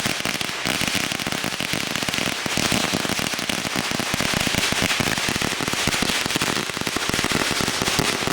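Firecrackers going off in a dense, unbroken string of rapid small bangs, many a second, at a steady level.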